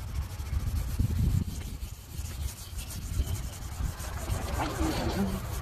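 Sandpaper rubbed back and forth by hand over a car's rear quarter panel: 400-grit wet sanding of body filler and old paint to smooth and blend the repair before primer.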